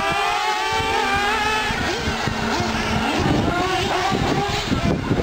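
Several nitro-powered 1/8-scale R/C trucks and buggies racing, their small two-stroke glow engines whining and rising and falling in pitch as they rev and back off. A rougher low rumble joins about halfway through.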